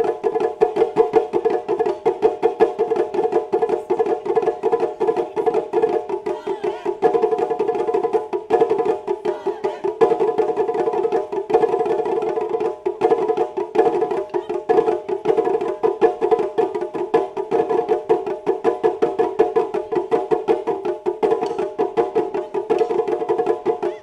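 Japanese taiko drums played in a fast, steady rhythm of sharp, evenly spaced strokes, several a second, with a ringing pitched tone from the tight drumheads.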